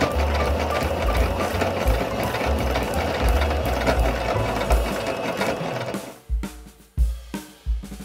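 Electric sewing machine stitching a seam at a steady run, stopping about six seconds in. Background music with a drum beat plays throughout.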